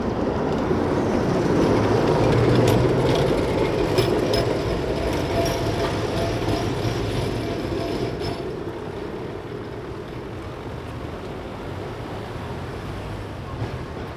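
Tatra T4SU tram rolling away past close by: its rumble swells to its loudest two or three seconds in, with a few sharp clicks, then fades as it moves off, leaving a steady lower street-traffic hum.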